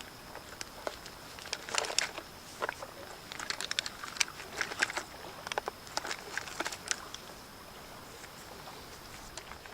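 Irregular rustling, clicking and knocking of camping gear being handled and packed away while breaking camp. The handling is busiest for the first several seconds and eases off near the end.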